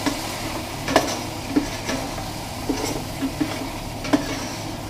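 Cubes of beef chuck sizzling steadily as they brown in olive oil in a stainless steel stock pot, with a few sharp knocks and scrapes of a spoon against the pot as they are stirred.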